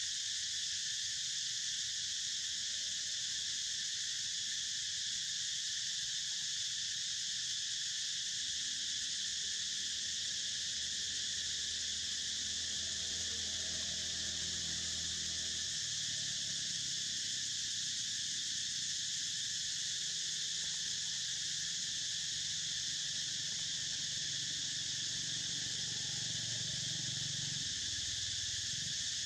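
A steady, unbroken chorus of insects droning in several high bands, with no pauses.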